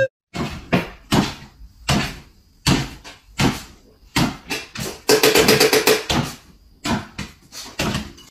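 A small dog hopping on its hind legs, its paws knocking on a wooden floor again and again, about once every 0.7 seconds, with a brief run of faster taps a little past the middle.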